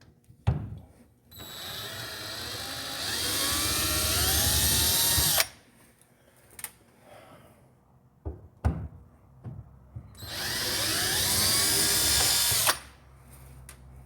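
Electric drill running twice, for about four seconds and then about two and a half, its motor whine rising in pitch as it speeds up. It is backing the screws out of an electrical outlet in a metal wall box. A few clicks and knocks fall between the two runs.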